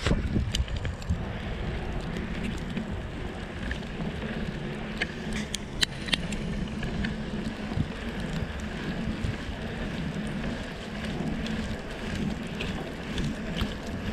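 Bicycle's 3-inch studded tyres rolling over a snowy road, a steady low rumble with wind buffeting the microphone. Scattered sharp clicks from the bike, several of them about five to six seconds in.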